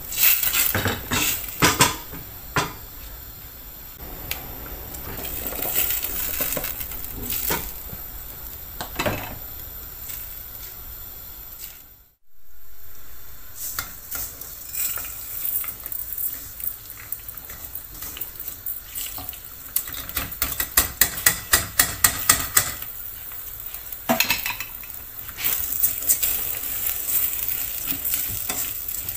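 Kitchen cooking sounds: food sizzling in a pan while a utensil stirs and clinks against pots and dishes. There is a brief gap about halfway through, and later a quick run of about a dozen sharp knocks.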